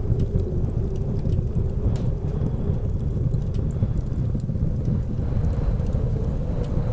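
Blizzard wind rumbling low and steady with a wavering howl above it, over the scattered small snaps and crackles of a wood fire burning in a fireplace.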